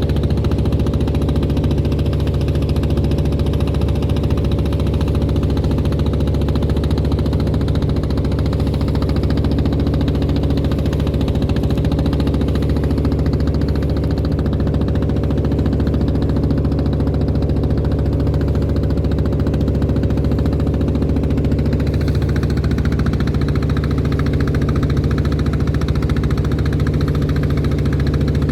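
Klotok boat's engine running steadily.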